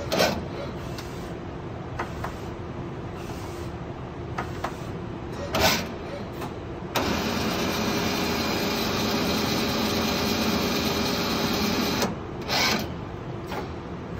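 Tsugami MU38SY CNC lathe running: a steady machine hum with a few short clunks as its tool turrets move. From about seven seconds in, a louder steady machine noise runs for about five seconds, then drops back to the hum.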